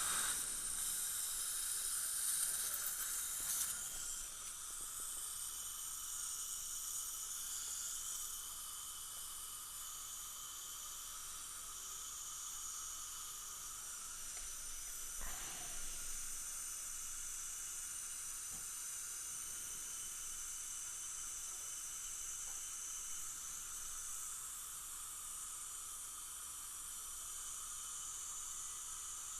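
Steady hiss of dental suction and air-water spray, louder in the first few seconds, with faint steady high whines from the dental equipment running underneath.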